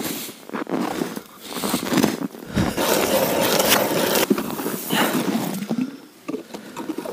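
Boots crunching through snow, then a hand ice auger being cranked into the ice, its blades cutting with a continuous scraping for a few seconds.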